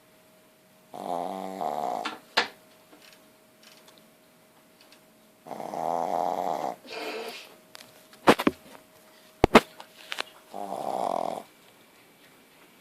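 Nine-month-old puppy snoring in her sleep, three snores about four to five seconds apart, which the owner puts down to her very large tonsils. A few sharp clicks fall between the snores.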